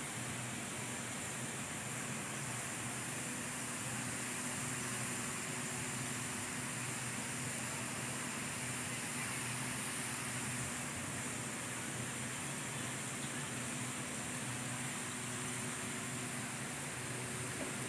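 Steady, even background noise with a faint low hum, unchanging throughout.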